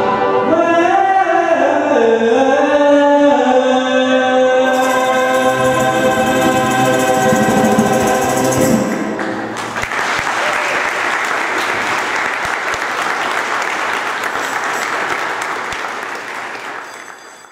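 Teenage choir singing, ending on a long held chord, then audience applause that starts about nine seconds in and fades away near the end.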